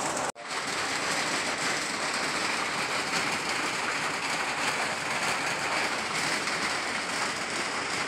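Steady rain falling. The sound cuts out briefly just after the start, then goes on unchanged.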